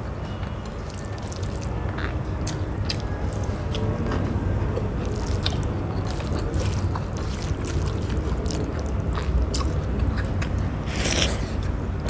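Eating rice and curry by hand: fingers scraping and squishing food against the plate, with many small wet clicks of chewing, over a steady low rumble.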